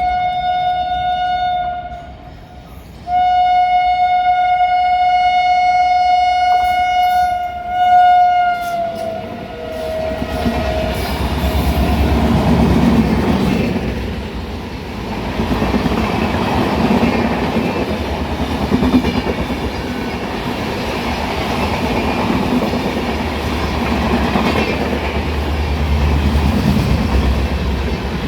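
An express train's electric locomotive, a WAP-7, sounds its horn in a short blast and then a long one of about six seconds, the pitch dropping as it passes. It is followed by the steady rumble and clickety-clack of the coaches running through the station at speed without stopping.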